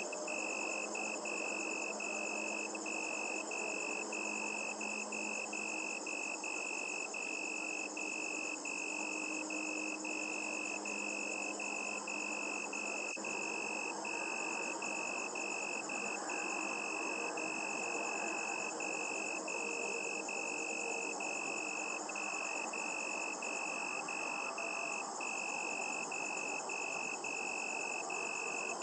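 Night chorus of high, shrill trilling calls, nearly continuous with brief breaks every second or so, with a fainter, higher buzzing above it.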